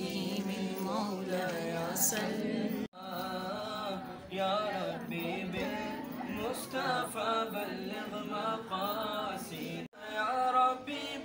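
Unaccompanied devotional singing of a naat or qasida by a group, with a young man's voice leading. The singing breaks off abruptly twice, about three seconds in and near the end, where the recording is cut.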